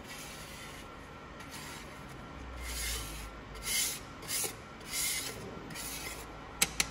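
Plastic card scraping and spreading metal powder across the build platform of a metal 3D printer: a series of short gritty swishes, roughly one a second. Two sharp clicks come just before the end.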